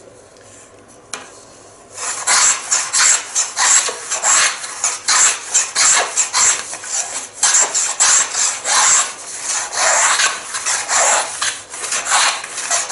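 Hand plane cutting shavings from the edge of a wooden lute rib blank as the rib is pushed across the blade in repeated strokes, about two a second, starting about two seconds in. The cut runs along the whole length of the rib as its edge is trued flat.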